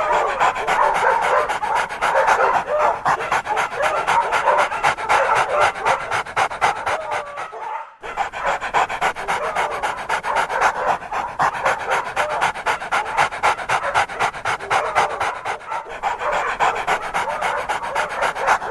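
Dog panting in quick, even breaths, pausing briefly about eight seconds in and then starting again.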